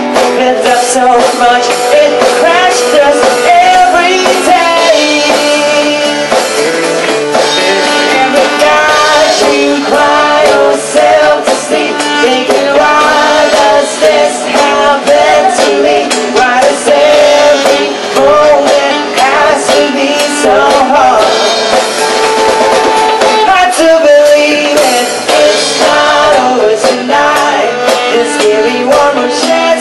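Live band playing with saxophone, electric bass, acoustic guitar and drum kit, in an instrumental stretch of a pop-rock song.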